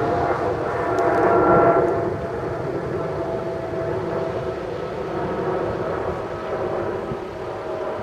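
Honda BF75 four-stroke outboard motor running at speed on a rigid inflatable boat, a steady engine drone that is loudest about a second and a half in and then eases slightly.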